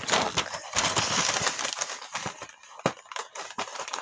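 Packaging being handled, crinkling and rustling with an irregular run of small crackles and clicks, one sharper click about three quarters of the way through.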